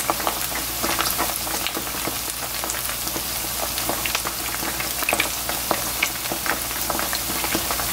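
Battered chicken gizzards deep-frying in hot oil on their second fry: a steady crackling sizzle with many small pops.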